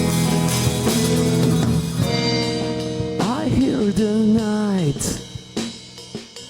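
A rock band playing live: held guitar and bass chords, then a gliding melodic line that bends up and down about three seconds in. The band then drops down to a quieter passage with a few drum hits near the end.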